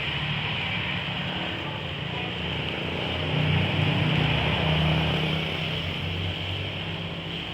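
Engine of a red-brick press machine running steadily, growing louder for about two seconds starting three seconds in.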